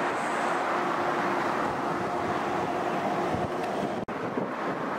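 A Great Western Railway Hitachi intercity train running away along the line with a steady rumble and a faint hum that fades about three and a half seconds in, with wind buffeting the microphone. The sound cuts out sharply for a moment just after four seconds.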